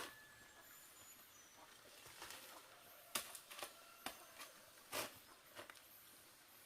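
Quiet background broken by about five short, sharp knocks or clicks, spaced unevenly over a few seconds.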